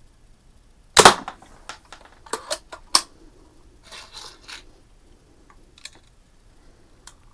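Daisy 499B spring-piston BB gun firing once, a sharp crack about a second in, followed by several smaller sharp clicks and a brief rattle of handling.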